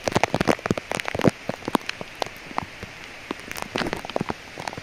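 Heavy rain falling, with many separate drop strikes heard over a steady hiss. The strikes come thickest in the first second and a half, then thin out.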